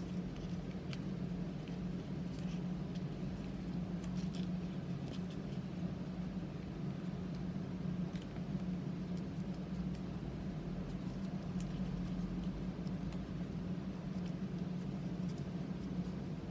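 Origami paper rustling and crinkling as it is folded and creased by hand: soft, scattered crackles over a steady low hum.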